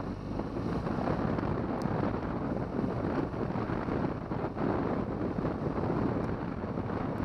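BMW R1200GS flat-twin (boxer) engine running steadily as the motorcycle rides a dirt trail, mixed with wind rumbling over the microphone.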